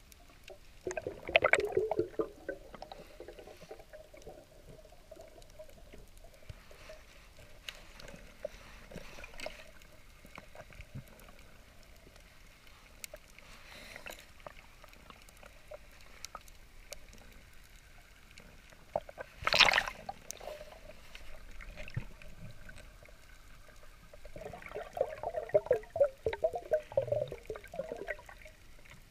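Muffled underwater water sound heard through a diver's camera housing, as a free diver grabs a nurse shark on the bottom. Water swirls and bubbles in short bursts about a second in and again near the end, and there is one sharp loud rush about two-thirds of the way through.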